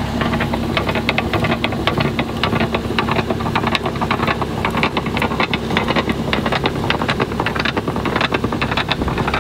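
Engine running steadily, with many quick, irregular knocks over its rumble.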